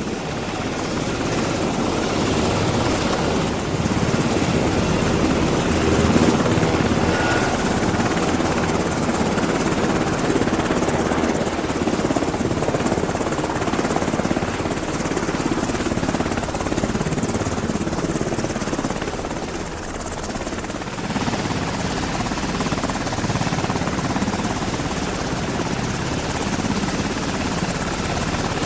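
Helicopter in flight: a steady mix of rotor and engine noise that builds up over the first few seconds and dips briefly about twenty seconds in.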